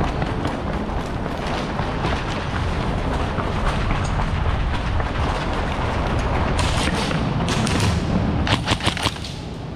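A steady low rumbling noise, then from about six and a half seconds in, several short bursts of airsoft gunfire, sharp cracks in quick clusters.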